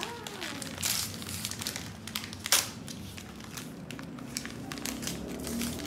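Paper gift bags crinkling and rustling as they are torn open by hand, with one louder, sharp crackle about two and a half seconds in.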